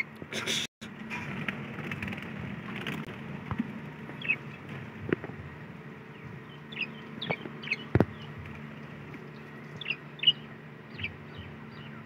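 Budgerigars chirping: short high chirps, some sliding down in pitch, in scattered clusters from about four seconds in. A few sharp knocks cut in, the loudest about eight seconds in, with a brief loud noise just after the start and a steady low hum underneath.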